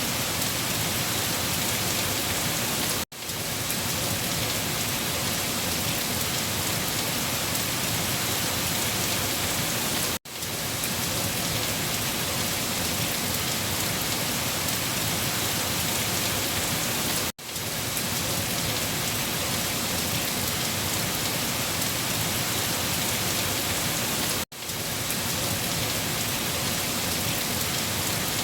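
Heavy rain falling steadily on leaves. It cuts out for a split second four times, about every seven seconds, and swells straight back in.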